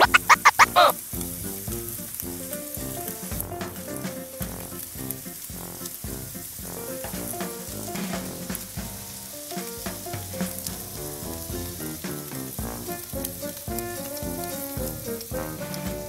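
Oiled pita bread sizzling and crackling on a hot grill pan, with music underneath. A fast run of loud, rhythmic scratchy strokes fills the first second.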